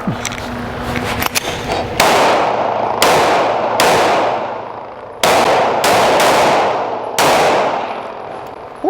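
Seven gunshots from an AR pistol and a Sar 9X 9mm pistol, fired in a transition drill, each with a long echoing tail; the shots come in an uneven rhythm from about two seconds in. Light metallic clinks come before the first shot.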